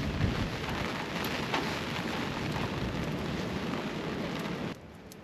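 Steady rain falling, with scattered drop ticks and some low rumble, cutting off suddenly near the end.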